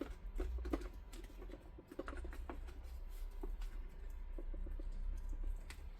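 Stiff X-Pac X50 laminated sailcloth being folded and handled, giving a run of small irregular crinkles and clicks.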